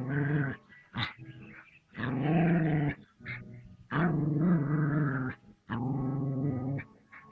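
Dog growling at a cobra in a series of drawn-out, rough growls, each about a second long, with brief sharp sounds in the gaps between them.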